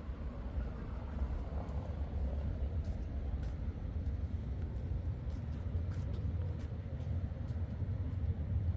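City street ambience: a steady low rumble, with faint light clicks through the second half.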